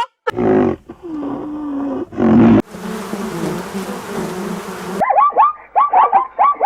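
Several different animal calls, one after another: low calls, then about two seconds of buzzing, then a fast run of short rising chirps.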